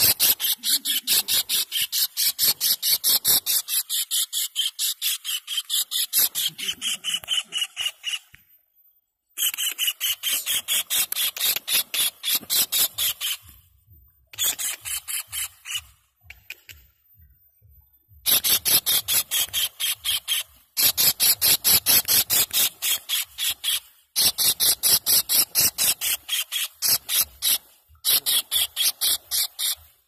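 Javan kingfishers calling: long bouts of rapid, shrill, evenly repeated notes, about six a second, broken by short pauses.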